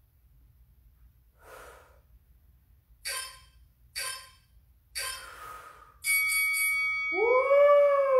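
Four short, sharp breaths about a second apart from someone doing dumbbell rows. Then a loud, sustained high tone sets in, with a wailing pitch that rises and falls over it.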